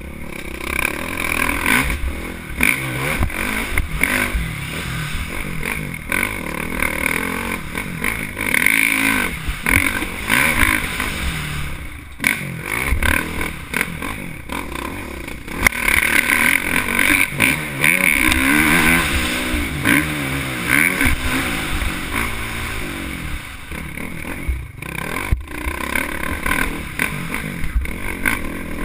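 Dirt bike engine revving up and down continuously as the bike is ridden hard along a forest trail, with brief drops in engine note twice, about twelve seconds in and near twenty-five seconds.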